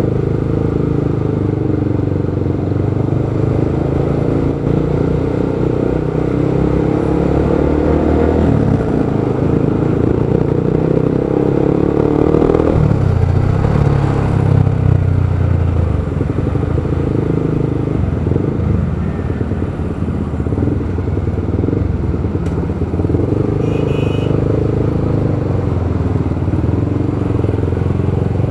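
Motorcycle engine running in traffic, with road and wind noise. It rises in pitch as the bike accelerates from about eight seconds in, then drops back about twelve and a half seconds in.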